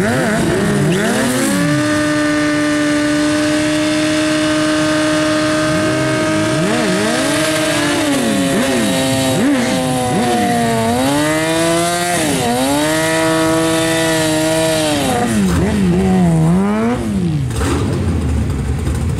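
Drag-racing motorcycle engines. One is held at high, steady revs through a rear-tyre burnout for several seconds, then the engines are revved up and down in repeated blips.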